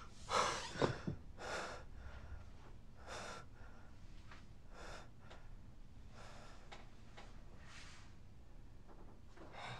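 A sleeping man breathing heavily through an open mouth, one noisy breath about every second and a half, the first few strongest.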